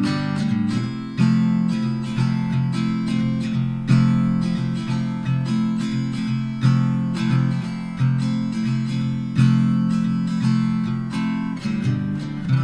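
Background music: acoustic guitar strumming and picking chords, each struck chord ringing and fading.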